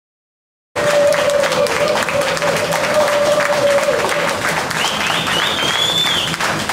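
Silence, then, less than a second in, a crowd clapping and applauding loudly and steadily. A steady mid-pitched tone runs under it for the first few seconds, and a high rising tone sounds near the end.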